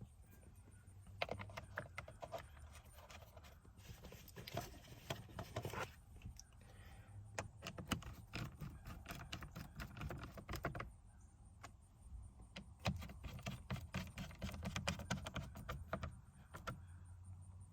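Irregular light clicks and clinks of screws and a screwdriver as the screws are put back into the steering wheel assembly, with small plastic parts knocking now and then.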